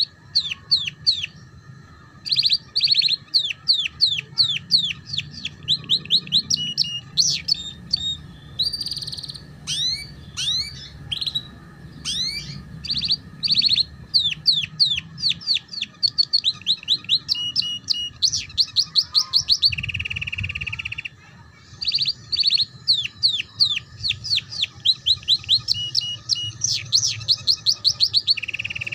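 Domestic canary singing a long, fast ngeriwik-style song of rapid, repeated trilled notes in quick runs, with short buzzy rolls about two thirds of the way through and again near the end. A faint steady low hum lies beneath.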